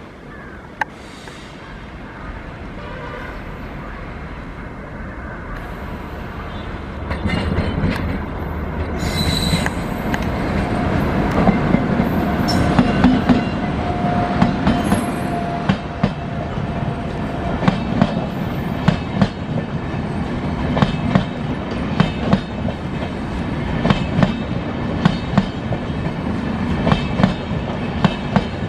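Passenger train running on the rails, growing louder over the first ten seconds as it comes closer, then a steady clickety-clack of wheels striking rail joints about once a second.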